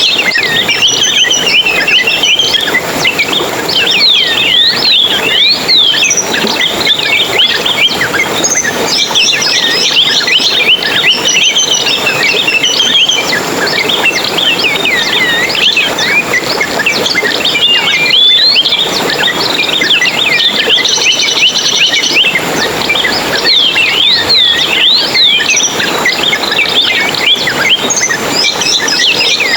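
Small songbirds twittering continuously: a dense, overlapping stream of quick high chirps that rise and fall in pitch.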